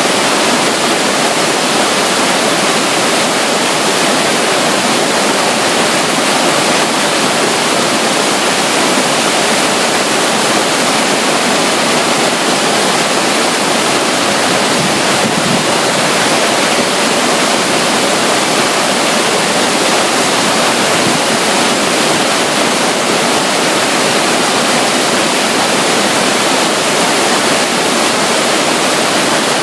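Steady, loud rush of flowing and falling water, even throughout, from a small water flow beside a river waterfall.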